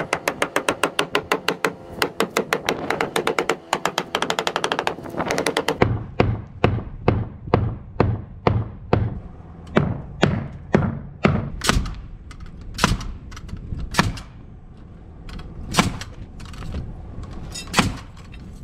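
Hammering on a wooden post: a fast, even run of ringing taps for the first six seconds, then separate heavier hammer blows about two a second. In the last several seconds come a handful of sharp, widely spaced shots from a pneumatic nail gun driving nails into the post.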